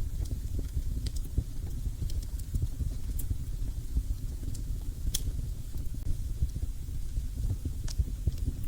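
Wood fire burning in a fireplace: a steady low rumble of flames with dense crackling and a few sharp pops, the loudest about five seconds in.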